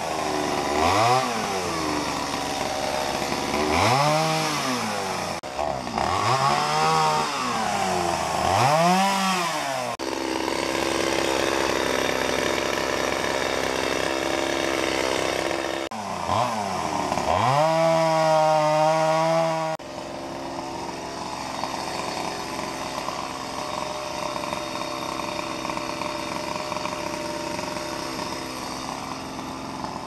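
Chainsaw limbing a felled tree, revved up and let back down about four times in quick succession, held at high speed for several seconds, revved once more, then running lower and steadier for the last third.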